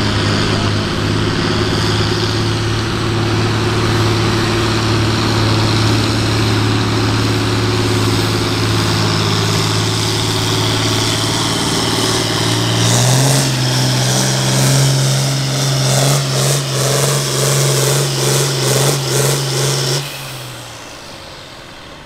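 Farm stock diesel tractor engine pulling a sled under full load, a steady drone that steps up in pitch about 13 seconds in, then surges and wavers in loudness before dropping off sharply near the end.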